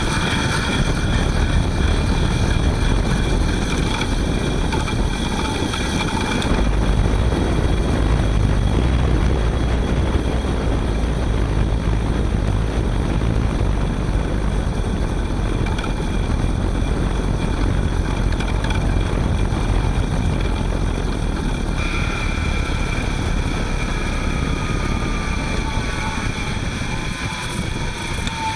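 Front hub motor of a Panasonic ViVi Charge WT electric-assist bicycle whining while the bike is ridden, with wind and road rumble underneath. The whine drops away about six seconds in and comes back near the end with a tone falling in pitch. The hissing 'shaa' noise is a cold-start symptom that the owner puts down to stiffened grease inside the hub motor, which clears once it warms up.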